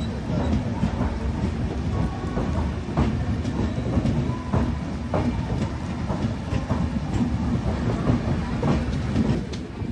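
Passenger train coaches rolling past on wet track: a steady rumble with the clickety-clack of wheels knocking over rail joints.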